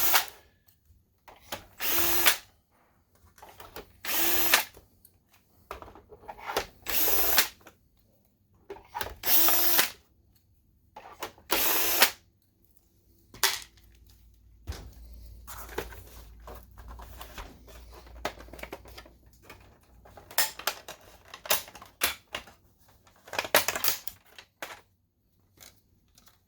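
Cordless power screwdriver backing out the projector's case screws in six short runs, each under a second long and about two and a half seconds apart, followed by scattered clicks and knocks as the case is taken apart.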